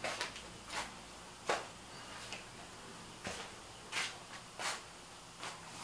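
Footsteps of slide sandals slapping on a tiled floor, about seven unhurried steps with a short pause in the middle.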